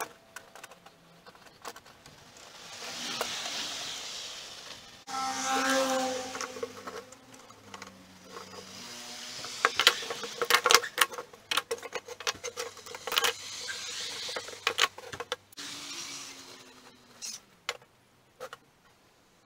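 Metalworking sounds: a small power-tool motor running at changing speeds and winding down near the end, with a busy run of metal clinks and knocks in the middle.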